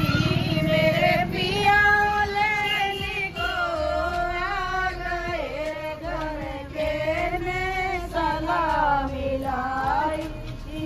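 A high woman's singing voice carrying a song melody, with long notes that glide up and down. A low rumble sits under the first second or so.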